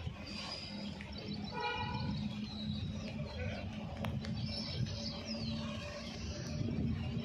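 Birds chirping over the low, steady hum and rumble of a distant approaching WAG-9HC electric locomotive and its freight train, the rumble slowly growing louder toward the end.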